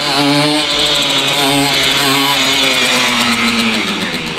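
Simson moped's single-cylinder two-stroke engine revving hard under acceleration. Its buzzing note holds at a few steady pitches with short dips between them and sags slightly near the end, over a strong hiss.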